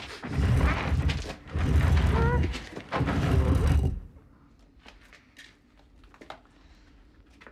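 Heavy stone door grinding and scraping open in three long pushes, stopping suddenly about four seconds in.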